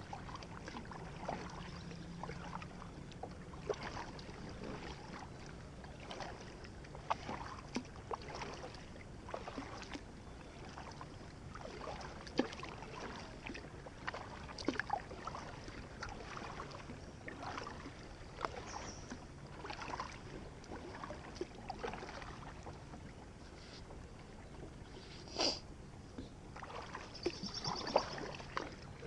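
Double-bladed Aqua-Bound kayak paddle dipping into calm river water stroke after stroke, with small splashes and drips off the blades. One sharper click stands out near the end.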